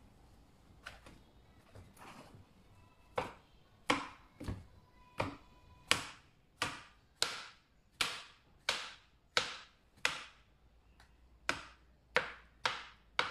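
Chef's knife slicing a mushroom on a cutting board, the blade knocking the board once per slice. The knocks are faint at first, then come steadily about every two-thirds of a second and get louder from about three seconds in.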